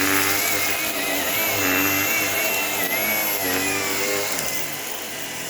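Shark PowerDetect vacuum cleaner running on an area rug: a steady motor whine whose pitch wavers up and down, easing slightly about four and a half seconds in.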